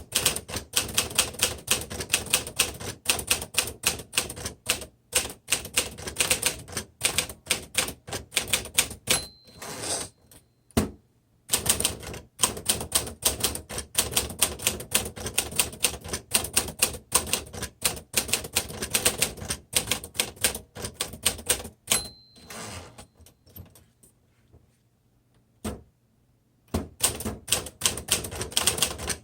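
Fast runs of keystrokes on a 1950 Smith Corona Silent manual typewriter, the typebars clacking against the platen in quick succession. Twice, about nine and twenty-two seconds in, a short bell-like ring sounds and the typing stops for a second or a few before carrying on.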